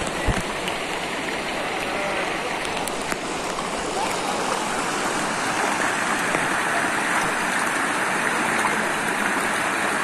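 River water rushing steadily over rocks at a small waterfall cascade, an even, continuous rush that grows a little louder about four seconds in.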